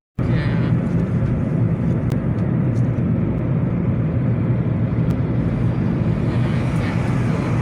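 Steady rumble of a car on the move, engine and road noise together. It starts after a moment's silence at the very beginning.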